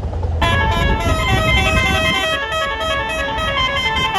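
Bus telolet basuri horn playing a fast melody of short stepping notes, starting about half a second in, over the low rumble of the bus engine.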